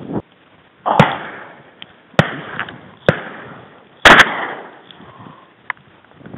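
Shotgun blasts: single shots about one, two and three seconds in, then two shots almost together about four seconds in, each trailing off in a short echo.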